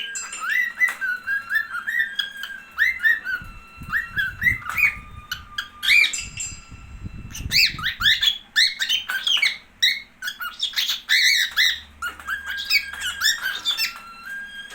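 Cockatiel chirping and calling: many short rising whistled calls in quick, uneven runs, with a low rumbling noise in the middle.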